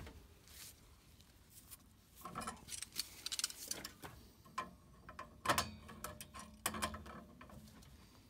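Hand tools and metal parts clicking and rattling against a furnace gas valve and its fittings as it is worked on, with a sharp click at the very start, a busy run of clicks in the middle and two more sharp clicks later.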